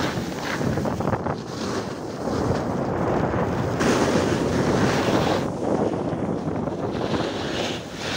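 Wind rushing over the camera's microphone as the skier carrying it goes downhill at speed, mixed with the hiss and scrape of skis carving the snow; the rushing swells and eases with the turns.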